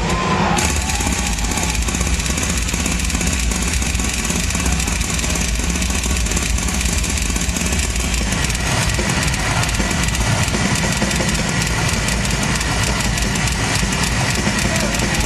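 Drum kit played fast and continuously, with rapid double bass drum strokes under crashing cymbals, as in a heavy-metal drum solo.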